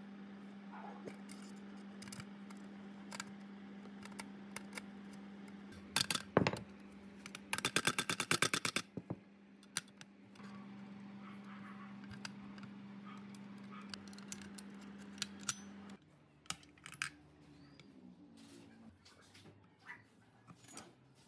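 Small metal clicks, taps and light clatter as the parts of a spring dial scale's mechanism are fitted into its steel housing by hand and screwdriver. A fast rattling run of clicks comes about seven seconds in. Under it all is a steady low hum that stops about three quarters of the way through.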